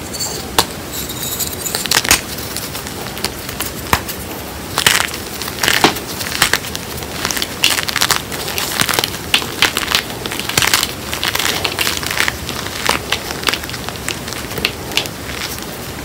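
Hands crushing chunks of reformed gym chalk, a mix of calcium and magnesium chalk with cornstarch, in a bowl: a dense run of irregular crunches and crackles as the lumps crumble into powder.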